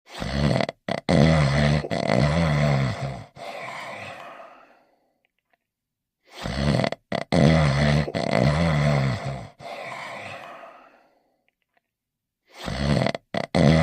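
Cartoon dog snoring: each snore is a loud, pitched, drawn-in rasp broken by short stops, followed by a quieter trailing breath out. Two full snores come about six seconds apart, and a third begins near the end.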